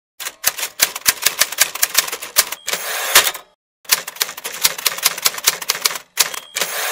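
Typewriter sound: a rapid run of key strikes, then a short bell ding and the carriage return sliding back. The same pattern repeats, with a second run of key strikes and another ding and return near the end.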